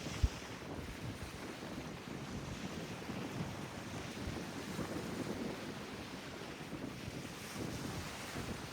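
Strong wind blowing across the microphone, a steady, uneven low rush of noise. There is one short low thump just after the start.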